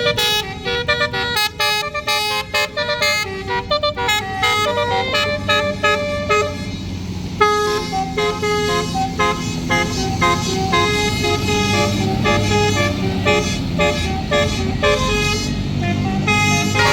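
A bus's basuri musical horn playing a fast melody of short, stepped notes. A low engine rumble runs underneath from about seven seconds in.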